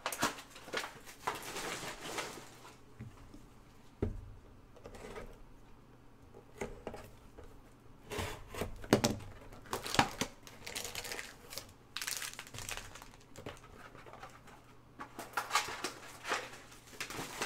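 Plastic shrink wrap on a trading-card hobby box being slit and pulled off, crinkling and tearing in irregular bursts. A dull knock about four seconds in.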